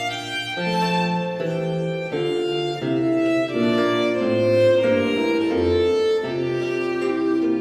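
Background music: slow bowed-string melody, violin over a low cello-like bass line, with a light piano or keyboard part.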